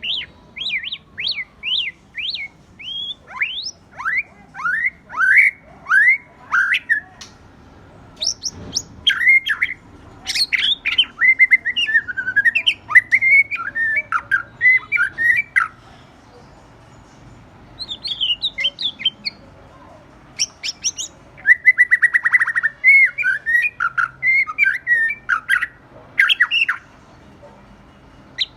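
White-rumped shama singing: phrases of loud whistled notes that glide up and down, broken by short pauses. About three-quarters of the way through comes a fast buzzy rattle, the kind of phrase shama keepers call 'kéo thuốc lào', like a water pipe being drawn.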